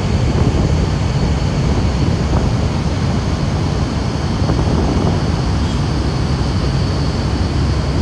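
Wind buffeting the phone's microphone on a cruise ship's open deck: a loud, steady low rumble.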